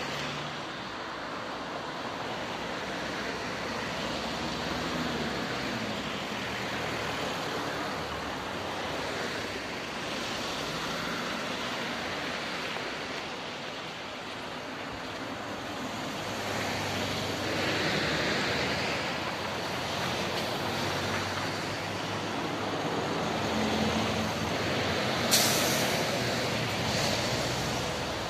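Road traffic passing close by: cars, a bus and a van, a steady rush of engine and tyre noise that swells as each vehicle goes past. A brief sharp hiss stands out a few seconds before the end.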